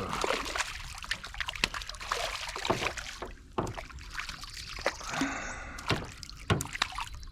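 Water sloshing and trickling around a small fishing boat, with many short clicks and knocks along the way and a steady low wind rumble on the microphone.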